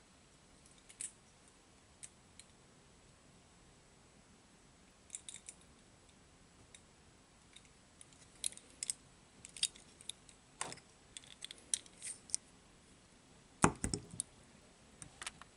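Hands handling a die-cast robot toy figure: a few faint clicks at first, then a run of sharp clicks and taps, with one heavier knock near the end.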